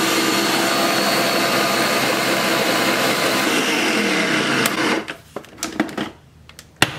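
Ninja Professional countertop blender running on a thick, frozen smoothie-bowl mix of banana and cauliflower, its motor pitch sliding down as it winds down and stops about five seconds in. Knocks and a sharp click follow as the pitcher is lifted off the motor base.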